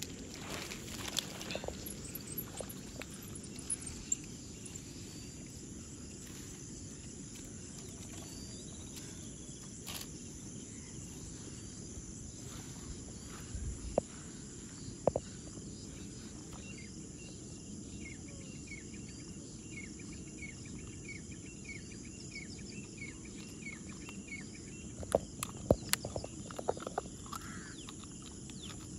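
A steady high-pitched chorus of insects over a low rumble, with a run of quick chirps in the middle and a few sharp clicks near the end.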